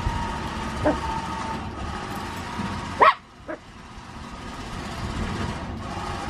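A dog gives a few short yips, the loudest about three seconds in. Under them runs the steady sound of the lorry's machinery hauling a static caravan up onto its trailer.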